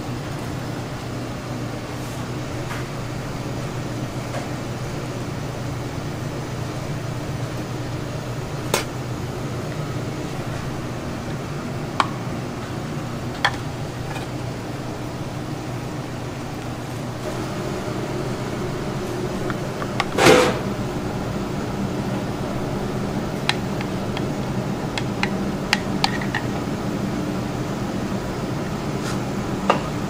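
Steady kitchen hum of fans or ovens, with scattered light clicks of utensils and one louder clatter about twenty seconds in.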